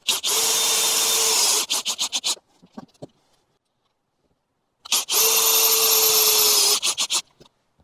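Cordless drill driving small stainless steel screws into a cable hatch flange: two runs of steady motor whine, the second starting about five seconds in. Each run lasts about a second and a half and ends in a few quick trigger bursts as the screw seats.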